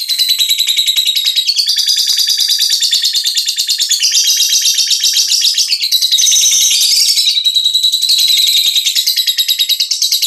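Young lovebird, about five months old, singing a long, unbroken, rapid high-pitched chatter without pausing.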